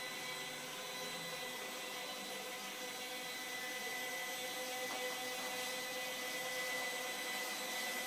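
QR Ladybird micro quadcopter in flight, its four small electric motors and propellers giving a steady high-pitched whine.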